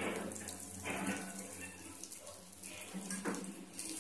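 Ghavne batter sizzling in oil on a hot nonstick tawa: a steady frying hiss with a few brief louder swells.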